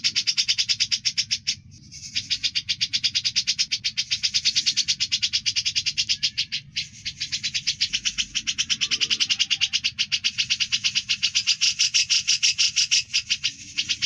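Cucak jenggot (grey-cheeked bulbul) singing in a rapid, continuous trilling chatter ('ngebren'), about ten high notes a second, with two brief breaks about two seconds and about seven seconds in.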